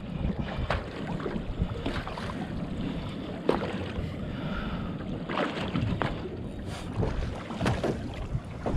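Wind rumbling on the microphone aboard a fishing boat at sea, with irregular sharp knocks every second or so.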